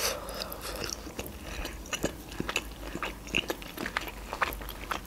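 Close-up eating sounds: a person biting and chewing grilled chicken, nibbling meat off a bone, with many irregular short mouth clicks.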